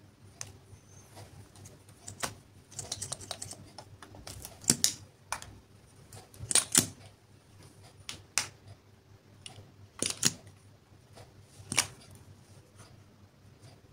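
Small hard-plastic clicks and taps from handling a plastic lipstick tube and pulling off its round cap: sharp single clicks every second or two, with a quick run of clicks about three seconds in.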